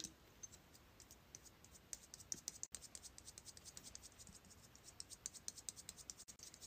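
Faint, rapid ticking clicks of a shiny Christmas ornament ball dabbed over and over against foundation on the cheek. The ticks are sparse at first and come quickly from about two seconds in.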